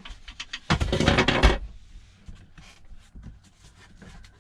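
Hand handling noise as the shifter boot and surrounding trim are worked loose: a few clicks, then a loud rubbing scrape lasting about a second, then scattered light clicks and knocks.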